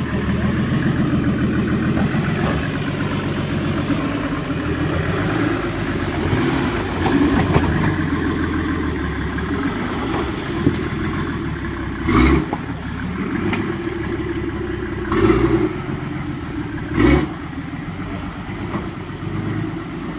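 Rock-crawler buggy's engine running and revving in bursts as it crawls over rocks, with three short loud bursts in the second half.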